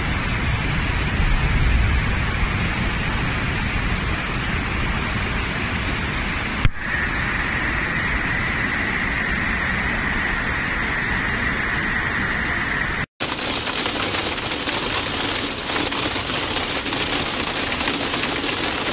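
Rushing floodwater: a steady wash of noise, with a heavy low rumble in the first couple of seconds. The sound changes abruptly about 7 and 13 seconds in, where clips are cut together.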